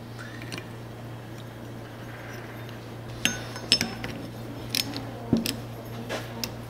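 Metal parts of a power steering pump clinking and tapping as a bolt and bracket are handled and fitted by hand, with a cluster of short, sharp clinks from about three seconds in. A steady low hum runs underneath.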